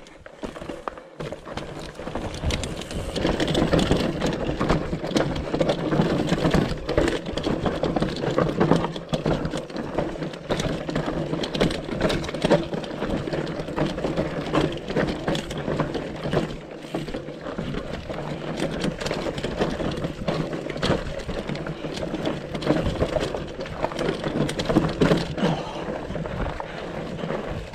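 Mountain bike ridden over rocky singletrack: a steady clatter of tyres on rock and dirt, with many small knocks and rattles from the bike.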